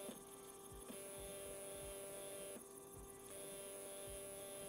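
NEMA 17 stepper motor driven by an A4988 driver at 1/16 microstepping, running with a steady hum of several held tones that briefly changes twice.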